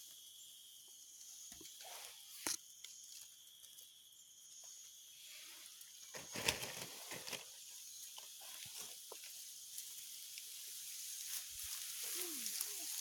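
Quiet outdoor ambience: a steady high-pitched drone for the first few seconds, scattered sharp clicks and knocks, and rustling that grows louder near the end.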